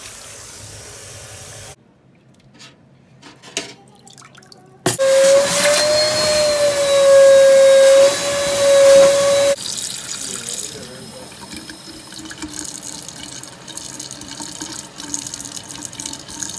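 A loud, steady whine that wavers slightly, over water noise, for about five seconds, ending abruptly. Then a faucet runs into a stainless steel kitchen sink drain.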